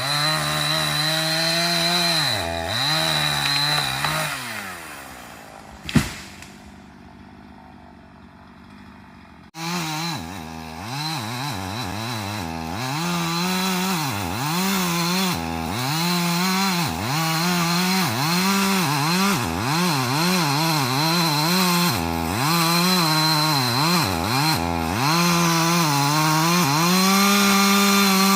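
Two-stroke chainsaw cutting wood, its engine note dropping and rising again and again. About five seconds in it dies away, and after a sharp click and a few seconds' lull it comes back suddenly. It keeps cutting, then holds a steady high rev near the end.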